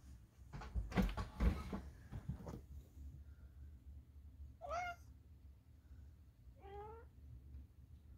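Rustling and a few knocks, then a domestic tabby cat gives two short, wavering meows, about five and seven seconds in.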